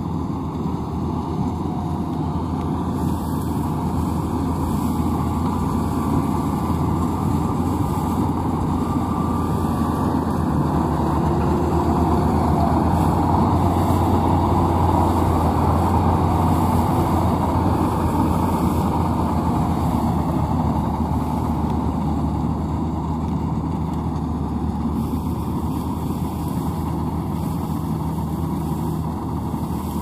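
Maxxi NDR85 Turbo Matic rice combine harvester running steadily as it harvests, a low engine hum with machinery noise. It grows louder as the machine passes close by about halfway through, then eases off a little.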